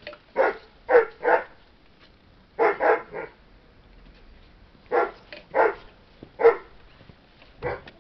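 A dog barking: about ten short barks in groups of two or three, with pauses between the groups.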